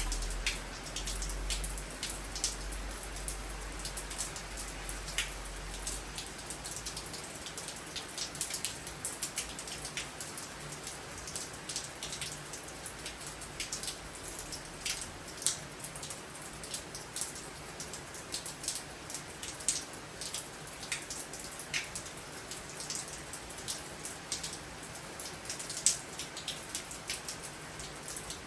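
Heavy storm rain falling steadily, with many sharp drops tapping close by. A low rumble underneath stops about six seconds in.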